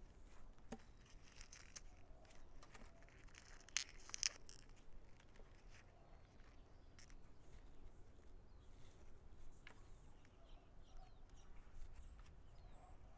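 Faint, scattered snaps and crackles of dry dead leaves being pulled and popped off an echeveria's stem by gloved hands, with the sharpest pair of clicks about four seconds in.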